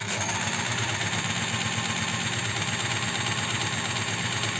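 Astralux M10 electric sewing machine running under its pedal, the motor humming and the mechanism clattering rapidly and squeaking as if unoiled. The oil has not yet worked into the mechanism, which is still stiff and binding.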